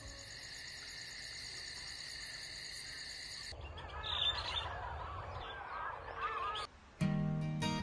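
A steady, high, rapidly pulsing trill of a night chorus of calling animals. About three and a half seconds in, it cuts to a busier mix of many short chirping bird calls. Near the end, acoustic guitar music begins.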